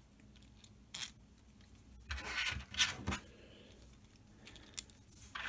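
Small 3D-printed PLA pistons being pushed by hand into the slots of a printed plastic block: faint rubbing and light plastic clicks. There is one click about a second in, a short run of scraping clicks around two to three seconds, and a sharp tick near the end.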